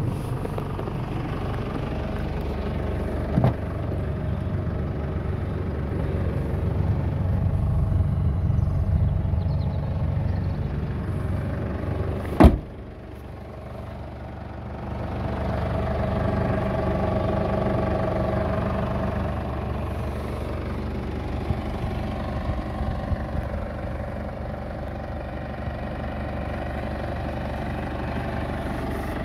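2008 Ford Ranger's diesel engine idling steadily, with a single sharp knock about twelve seconds in.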